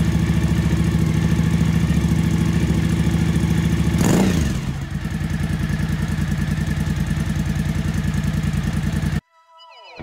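Suzuki V-Strom DL1000's V-twin engine idling with a steady beat after reassembly from a valve adjustment, with a brief rev about four seconds in that falls back to idle. The engine sound cuts off suddenly near the end, and music begins.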